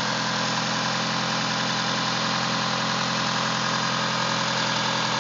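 Mitsubishi 4G63T turbocharged inline-four idling steadily. The owner suspects a rod knock from worn rod bearings, a knock that comes and goes.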